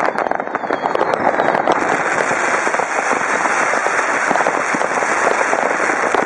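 Many fireworks and firecrackers going off at once: a dense, continuous crackling and popping with no single bang standing out. A steady hiss joins about two seconds in.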